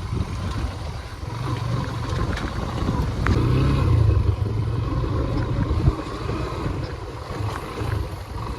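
Motorcycle engine running while under way on a rough road, with wind buffeting the microphone. It gets louder for a second or two around the middle, and there is a single knock shortly after.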